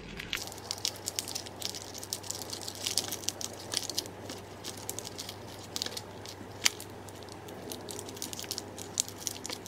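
Clear plastic wrap and thin ribbon crinkling and rustling in the hands as a bow is tied, with scattered small clicks and one sharper tick about two-thirds of the way through.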